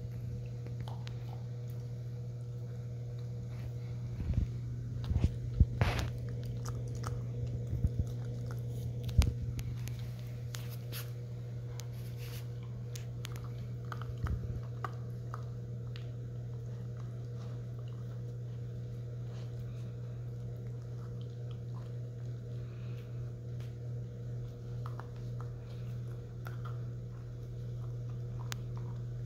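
American Akita puppy biting and crunching an ice cube, with a run of sharp crunches between about four and ten seconds in and one more a few seconds later. Near the end it turns to quicker, softer, even sounds as the puppy licks at the ice.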